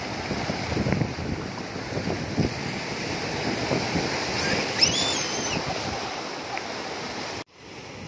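Strong surf breaking and rushing over large rounded rocks in the shallows, with wind buffeting the microphone. A short high-pitched cry rises and falls about five seconds in. Near the end the sound cuts off abruptly and comes back as quieter surf.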